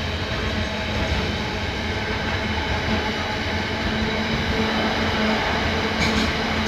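Loaded container wagons of a freight train rolling past at speed: a steady rumble of steel wheels on the rails, with a few sharp wheel clacks near the end.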